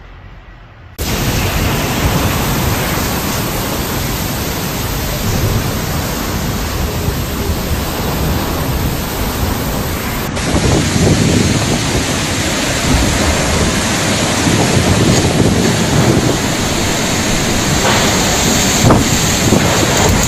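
Heavy rain and strong wind in a storm, the gusts buffeting the microphone: a loud, steady rush of noise that starts abruptly about a second in.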